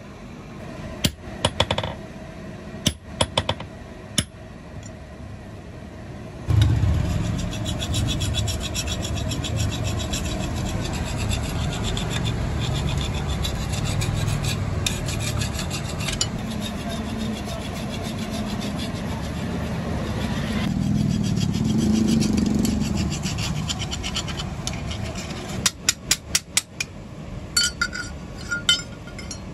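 A few scattered hammer taps on a steel kasi (hoe) blade resting on an anvil, then a long stretch of steady hand-filing along the blade, metal file rasping on steel. Near the end the filing stops and a quick run of hammer taps follows.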